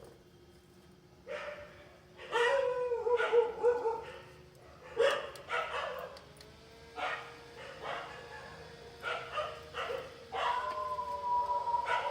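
A dog barking and howling, with repeated calls and a longer held howl near the end.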